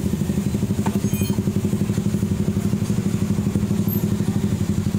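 A small engine idling steadily with a fast, even pulse of about a dozen beats a second. A light metallic clink sounds about a second in.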